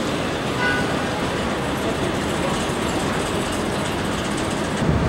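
Steady rumbling din of street traffic mixed with a running escalator's machinery, with a brief faint high squeal under a second in.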